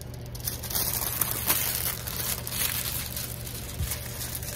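A large diamond painting canvas and its clear plastic cover crinkling and rustling as hands flatten it on a table, in irregular scratchy crackles.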